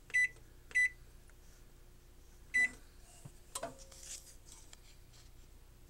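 Electric oven's digital control panel beeping as its buttons are pressed to set the bake temperature: two short high beeps near the start and one more about two and a half seconds in, followed by a few faint knocks and clicks.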